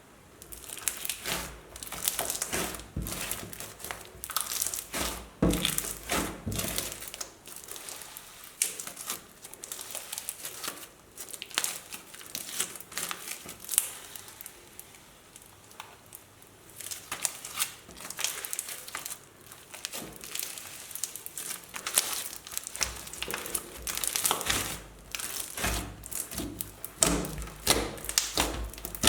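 Crunchy slime being squeezed and worked by hand, a dense crackling and popping that comes in bursts with short lulls.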